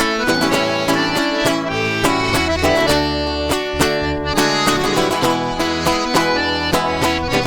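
Instrumental break in a sertanejo song: an accordion plays the melody over rhythmic plucked-string accompaniment.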